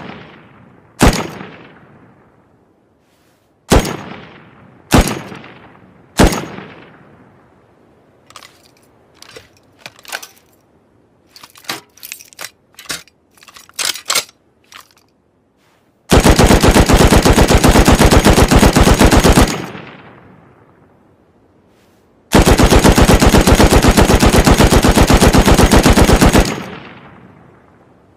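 Machine-gun sound effect: four single loud shots, each with an echoing decay, then a run of quieter clicks and pops. It ends with two long full-auto bursts, of about three and a half and four seconds, each trailing off in echo.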